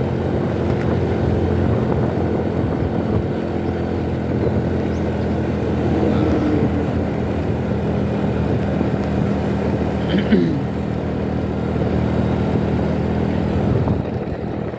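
Motorcycle on the move: a steady engine drone with road and wind noise, and a short sharp sound about ten seconds in.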